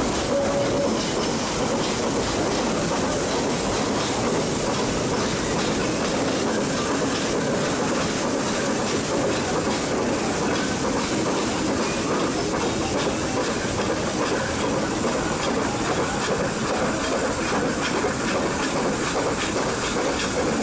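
Nilgiri Mountain Railway metre-gauge train running: a steady, even noise of wheels on rail and rolling stock, with faint scattered clicks.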